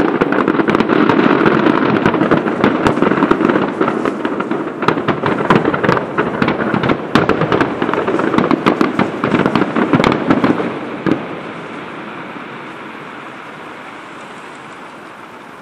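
Fireworks finale: dense, rapid bangs and crackling of many shells bursting at once, ending with a last bang about eleven seconds in. After it the rumble and echo die away steadily.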